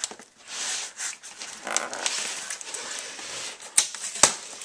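Cardboard monitor box being handled and opened: rubbing and scraping of cardboard, with two sharp knocks near the end.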